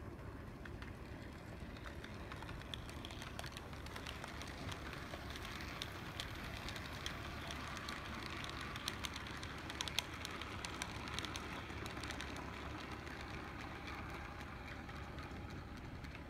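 HO scale model train rolling past on metal track, its wheels clicking over rail joints and turnouts. The rumble and clicking build up, are densest through the middle as the cars pass closest, then fade.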